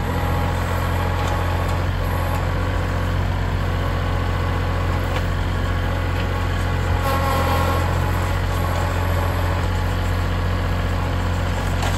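Kubota L3901 tractor's three-cylinder diesel engine running steadily at an even speed.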